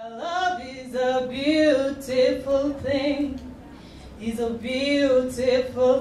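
A voice singing unaccompanied into a microphone: long held, gently wavering notes in two phrases, with a short break about three seconds in.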